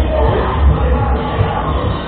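Loud music playing, with a heavy bass beat.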